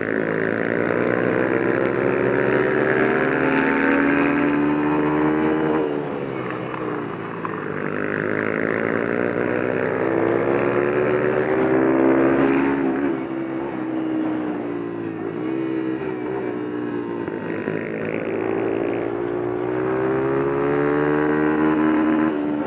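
Flat-track racing motorcycle engine heard from on board, revving up along the straights and backing off into the turns, its pitch climbing for a few seconds and then dropping, over and over every five to six seconds.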